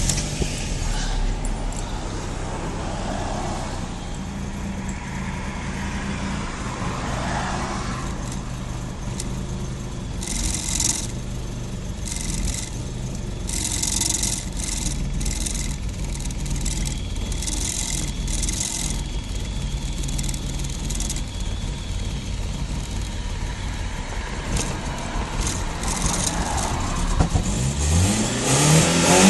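BMW M43 four-cylinder engine running at a steady idle, with hiss coming and going for several seconds in the middle, then revved up and let fall back near the end. The owner suspects a vacuum leak.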